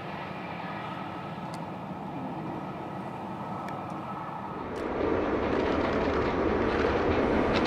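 Rumble of a train running away into the distance, then about five seconds in a louder, fuller sound: a GWR Castle Class 4-6-0 steam locomotive approaching with its carriages, the rumble of its running growing louder.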